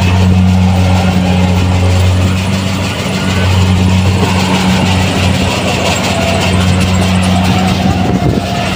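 Kubota rice combine harvester running in a muddy paddy: a steady, loud engine drone with a dense mechanical rattle from its working parts.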